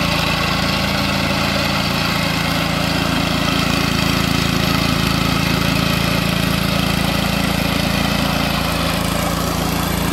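Walk-behind sod cutter's small gasoline engine running steadily at a constant speed as the machine is pushed across the lawn.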